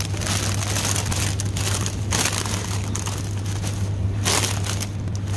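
Close rustling and handling noise on the phone's microphone, crinkling plastic and clothing, in irregular bursts over a steady low hum.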